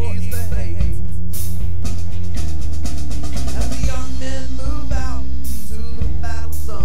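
Late-1960s-style rock music on drum kit, bass and guitar, with a fast drum roll about two and a half seconds in and sliding, bending lead notes.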